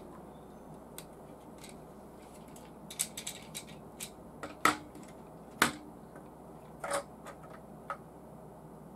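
Clicks and taps of hard clear-plastic model engine parts being handled and pressed together, a scattered series of short sharp clicks through the middle, the two loudest a little under a second apart.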